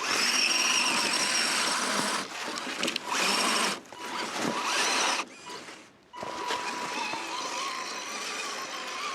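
Axial SCX10 Deadbolt RC crawler's electric motor and gears whining in bursts as the throttle is applied and let off, with a short break about two seconds in and a longer one around five to six seconds.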